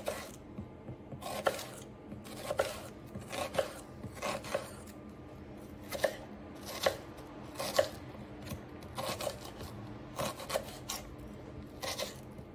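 Kitchen knife chopping an onion on a wooden cutting board: short, sharp knocks of the blade against the board, irregularly spaced at roughly one or two a second.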